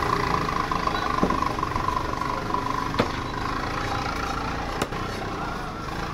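A large curved fish-cutting knife chopping through fish onto a wooden chopping block: a few sharp knocks about two seconds apart, over a steady engine-like hum.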